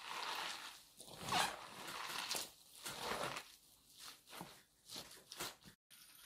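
Shredded cabbage, carrot, pepper and tomato salad being tossed and squeezed by gloved hands in a large metal bowl: a string of wet rustling, squishing swishes, a little more than one a second, broken by a short gap near the end.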